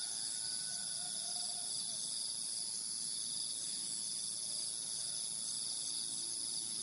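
Steady, high-pitched chorus of insects such as crickets, trilling without a break.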